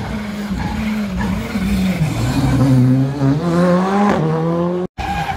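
Rally car engine running hard: its note drops about two seconds in as the car slows for the corner, then climbs as it accelerates out. The sound breaks off abruptly near the end and another engine starts.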